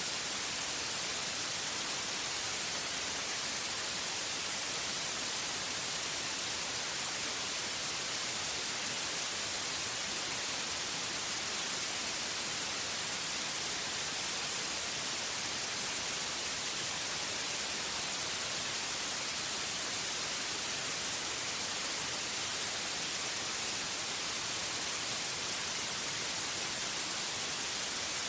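Steady synthetic white noise: an even, unchanging hiss, strongest in the high range, with no other sound.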